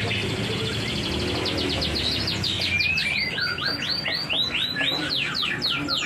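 Caged songbird singing: a few chirps, then from about a second and a half in a fast, even run of repeated downward-slurred whistled notes, about four or five a second. A steady low hum runs underneath.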